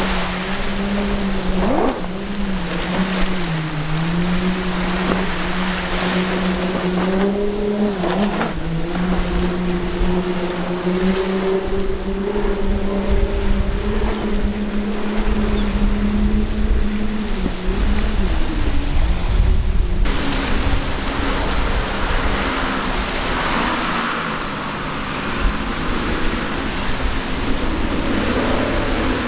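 Speedboat engines running hard at speed through rough water, over the rush of spray, wind and waves. The engine note holds steady with brief dips in pitch now and then; about twenty seconds in it gives way to a noisier rush as another boat passes.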